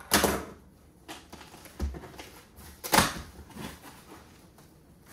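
Sealed shipping box being handled: a few sharp knocks and thuds, the loudest about three seconds in, with lighter taps and rustling between.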